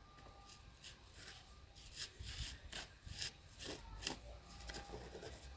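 Hard plastic being scraped or abraded by hand: about a dozen short rasping strokes, loudest and closest together in the middle.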